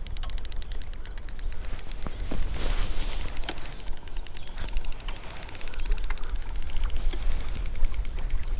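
Spinning reel clicking rapidly and evenly while a hooked fish, an ide, is played and reeled in toward the bank.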